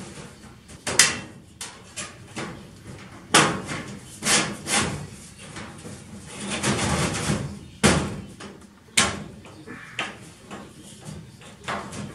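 Sheet-metal duct section being wiggled by hand into S-cleats on an overhead trunk: an irregular series of sharp metallic bangs and clatters, with a longer scraping rattle a little past the middle.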